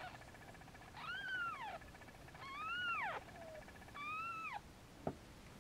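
Newborn kitten mewing: three high, thin calls about a second and a half apart, each rising and then falling in pitch, followed by one short tap near the end.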